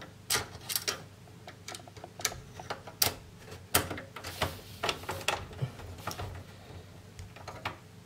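Hand screwdriver driving a screw into the steel expansion-slot bracket of a Dell Inspiron 546 desktop case to secure a graphics card: a string of irregular metallic clicks and ticks as the tip and screw work against the sheet-metal chassis.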